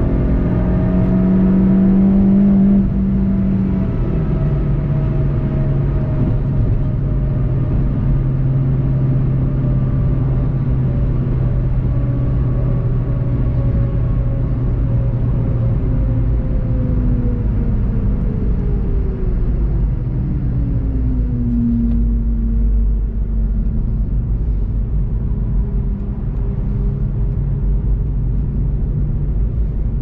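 In-cabin sound of a VW Golf 7.5 GTI TCR: its turbocharged four-cylinder engine running over steady road and tyre rumble. The engine note drops about three seconds in, then falls slowly as the car slows down.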